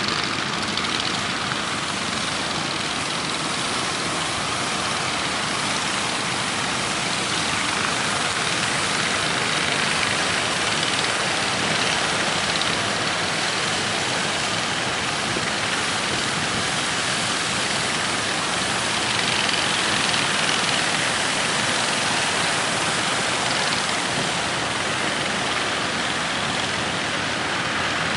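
A fishing boat's engine running steadily under a constant loud rush of wind and waves.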